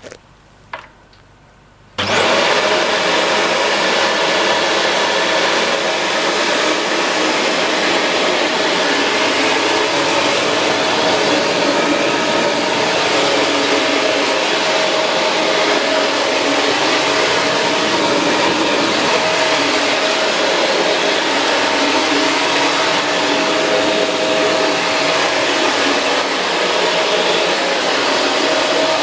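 Shark Rotator Pro Lift-Away NV500 vacuum cleaner switched on after a couple of clicks about two seconds in: its motor whine climbs quickly to speed, then it runs steadily and loudly.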